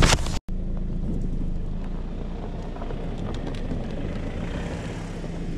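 SUV driving slowly on a snow-covered road: a steady engine hum with tyre noise, starting abruptly just under half a second in.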